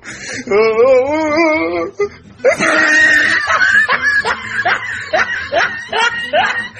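Meme sound-effect clips: a wavering, pitched voice-like sound for about two seconds, then, after a brief gap, a fast run of laughter-like syllables over music.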